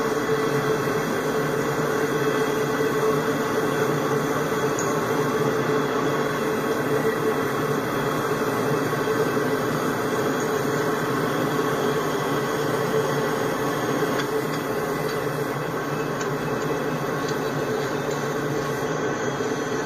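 Freight train of intermodal flatcars carrying highway trailers rolling past, a steady noise of steel wheels on rail with a steady hum in it, easing slightly near the end as the last cars approach.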